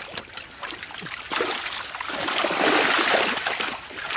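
Water splashing and crackling in a drawn-in fishing net crowded with live small fish thrashing in the shallows, as hands work through the catch. The splashing is busiest a little past the middle.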